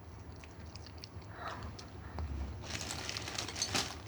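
Crinkly rustling of something being handled, starting about two-thirds of the way in as a quick run of small crackles over a faint low hum.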